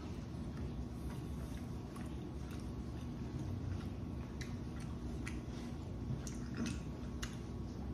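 A person chewing food close to the microphone, with scattered small wet mouth clicks at irregular intervals.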